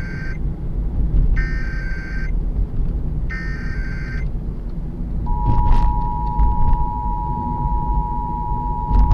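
Emergency Alert System test on FM radio: the digital SAME header, three short bursts of buzzing data tones about two seconds apart, the first already under way, then about five seconds in the steady two-tone EAS attention signal starts and holds, over a low rumble.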